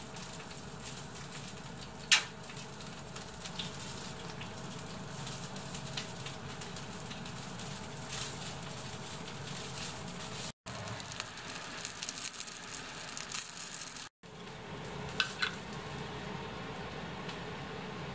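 A steady sizzling hiss, with one sharp click about two seconds in and a few lighter clicks near the end.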